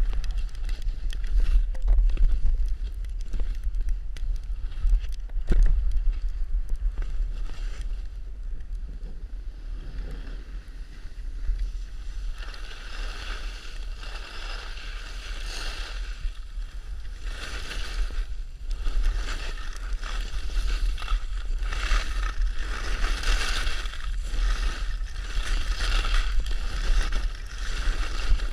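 Wind rumbling on a pole-mounted GoPro's microphone while skiing, with skis hissing and scraping over the snow; the scraping grows louder about halfway through.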